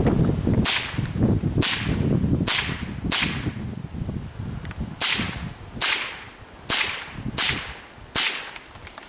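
.22 LR rifle firing at steel targets in a timed run-and-gun stage: nine sharp cracks at an uneven pace of roughly one every three-quarters of a second, with a pause of nearly two seconds in the middle.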